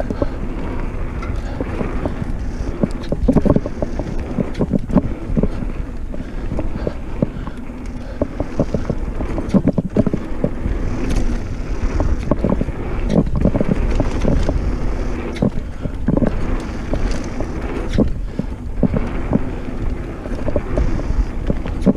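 Mountain bike riding fast down a dirt trail: wind rushing over the microphone and tyres on dirt, with frequent knocks and rattles from the bike over bumps.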